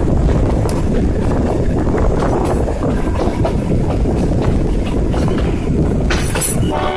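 Narrow-gauge Shimla toy train carriage running on the rails: a steady rumble and rattle with faint clicks, and a brief hiss about six seconds in.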